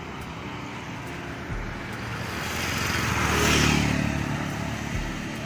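A motor vehicle passes close by on the road, its noise swelling to a peak about three and a half seconds in and then fading, over a steady background of street traffic.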